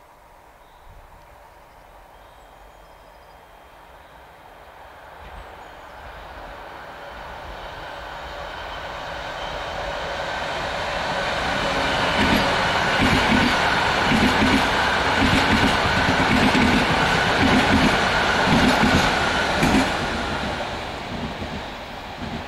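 Pendolino high-speed electric trainset (PKP Intercity ED250) approaching and passing at speed, its rumble building over several seconds. It peaks in a loud, regular clatter of wheels over the turnouts, about one and a half strikes a second, with a steady high whine. The sound falls away near the end.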